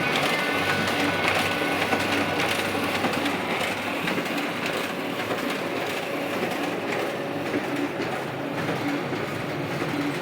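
Canon imageRUNNER ADVANCE 8105 production copier running a fast double-sided A4 print job: a steady mechanical clatter of sheets being fed and transported.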